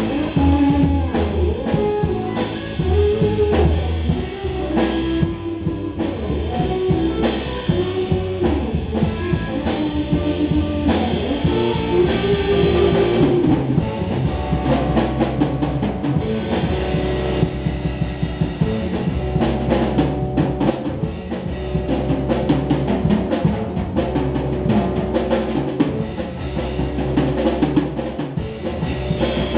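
Live instrumental rock band playing: electric guitar, bass guitar and drum kit. About halfway through, the drumming turns to rapid, closely packed hits.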